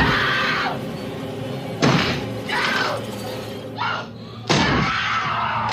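An axe smashing through a wooden door, with sharp splintering strikes about every two seconds, a woman screaming and music playing underneath.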